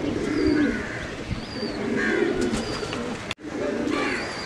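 Domestic pigeons cooing: about three low, warbling coos in a row, with the sound dropping out for an instant a little after three seconds in.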